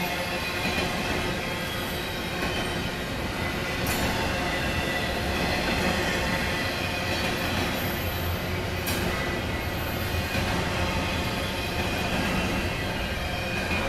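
Double-stack intermodal freight train's well cars rolling past: a steady rumble of steel wheels on the rails with faint, thin squealing tones from the wheels.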